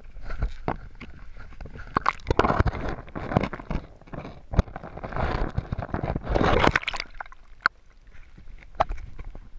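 Water sloshing and gurgling around a GoPro camera dipped into shallow lake water as a largemouth bass is let go, in several loud surges with sharp splashy clicks.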